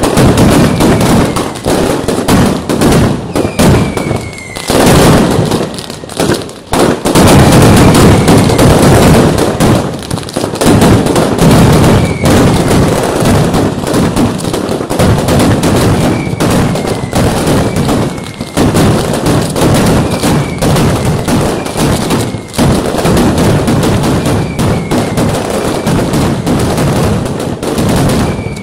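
Mascletà firecrackers (masclets) going off in a dense, unbroken barrage of loud bangs, with short falling whistles every second or two.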